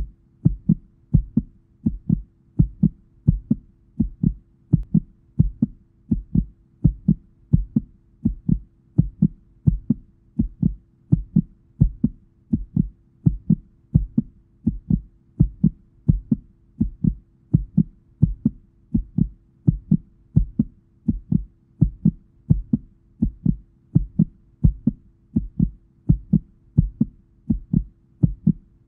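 Heartbeat sound: low, even beats repeating steadily at a regular pace of about one and a half a second, over a faint steady hum.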